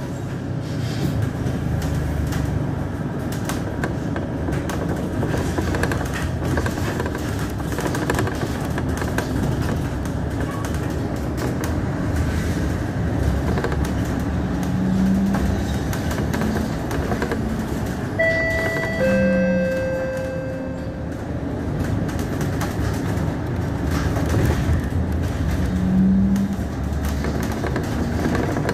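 Inside a moving city bus: steady engine and road rumble. About two-thirds of the way through, a short two-note electronic chime sounds, the second note lower.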